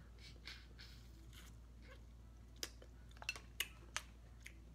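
Quiet close-up eating of Dungeness crab: soft mouth and chewing sounds, then several sharp clicks between about two and a half and four seconds in as the meat is picked from the shell.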